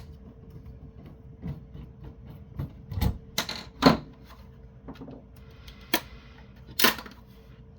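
Brittle plastic housing of a small network switch clicking and cracking in irregular sharp snaps as it is pried open, the loudest snaps a few seconds apart.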